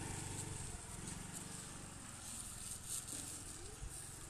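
Small motor scooter engine running quietly at low revs, under a steady high hiss of outdoor ambience.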